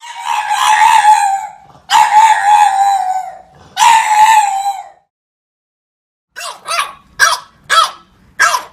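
French bulldog howling three times, each howl about a second and a half long, then after a short pause giving five quick, short barks, about two a second.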